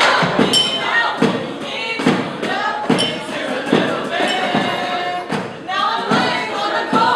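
Voices singing over a steady beat of thumps struck on everyday objects, about one thump every three-quarters of a second.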